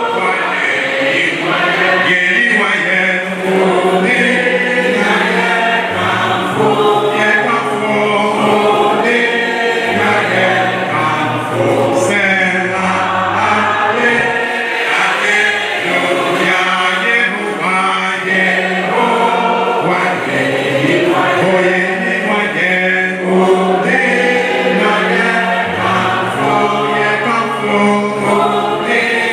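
A choir singing a Christian gospel song, with steady low notes sustained underneath the voices.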